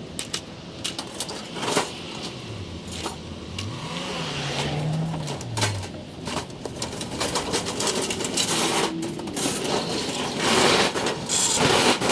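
Metal kitchen stove rattling and clattering as it is wheeled across the ground, a steady run of knocks and scrapes that grows louder toward the end: so much noise.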